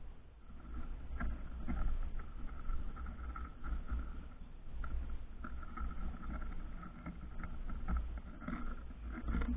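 Wind buffeting the microphone, a low rumble that rises and falls in gusts, with faint scattered clicks and a faint thin tone that comes and goes.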